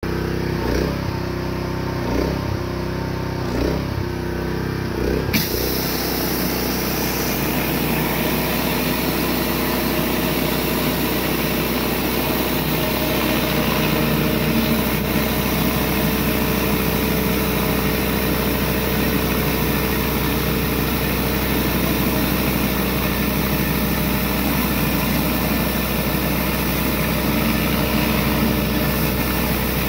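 Pressure washer engine running steadily. About five seconds in, water starts jetting through a 15-inch Surface Maxx surface cleaner onto concrete: a loud spray hiss starts suddenly over the engine and carries on.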